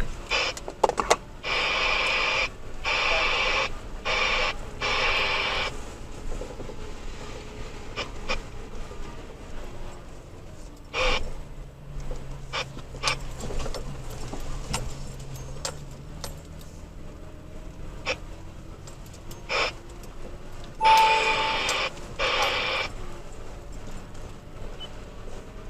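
Bursts of static from a two-way radio in the truck cab, one lasting about four seconds near the start and a shorter one near the end, over scattered knocks and rattles.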